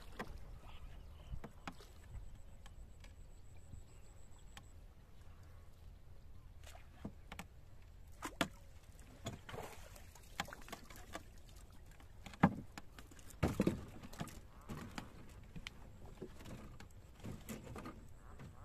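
Wooden boat being poled through water hyacinth, with water splashing, then a wire-mesh fish-trap cage being hauled out of the water and set down on the boat: a string of knocks, splashes and rattles, the loudest a little past the middle.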